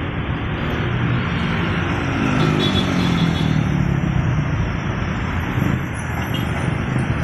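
Road traffic passing: a container truck and motorcycles driving by with steady tyre and engine noise. One engine's note rises and falls about two to four seconds in.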